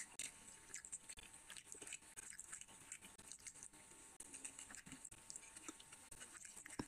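Faint, wet eating sounds: small sticky clicks and squelches as curry-covered fingers pull meat off a whole mutton head in thick gravy.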